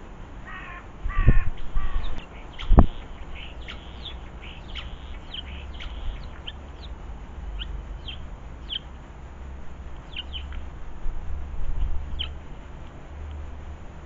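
Harsh, grating bird calls in the first two seconds, with two loud thumps, then a run of short, high chirps from small garden birds until near the end, over a steady low rumble.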